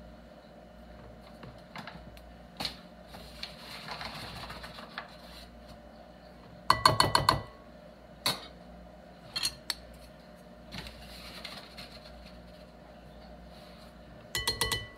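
Flour being measured into a ceramic mixing bowl: a measuring cup knocked in quick clusters against the bowl, ringing clinks about seven seconds in and again near the end, with fainter knocks in between.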